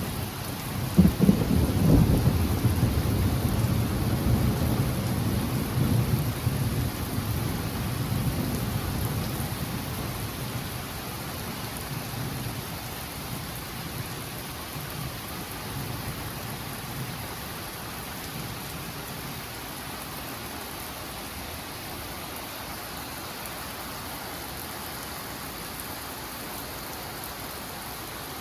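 Close thunder: a sharp crack about a second in, then a loud low rumble that dies away over about ten seconds, with steady rain hissing throughout.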